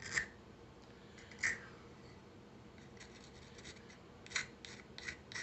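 A hand file scraping the sharp edge of a G10 pistol grip panel in short, separate strokes, a few spaced out at first and then coming quicker in the last second and a half, to knock the edge down.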